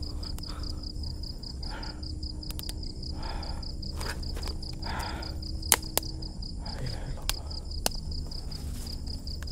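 A cricket trilling steadily in fast, even pulses. Several soft breath-like rushes and three sharp clicks in the second half are heard over it.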